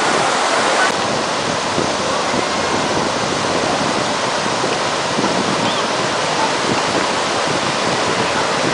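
Steady rush of sea waves and wind on the microphone.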